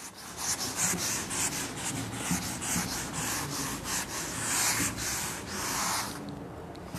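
Board eraser wiping a teaching board clean in repeated back-and-forth rubbing strokes, which stop near the end.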